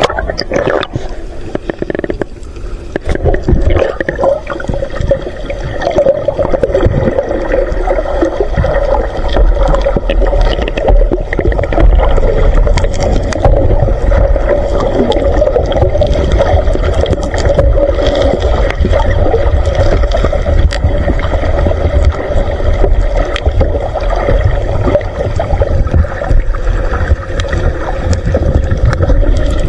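Underwater sound through a submerged camera: a muffled low rumble with gurgling bubbles and a steady drone running through it, with scattered faint clicks.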